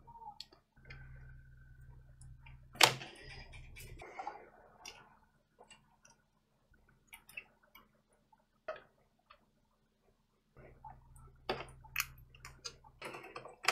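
Scattered light clicks and taps of a printed circuit board and its parts being handled and turned over on a cutting mat, with one sharper click about three seconds in. A faint low hum comes and goes underneath.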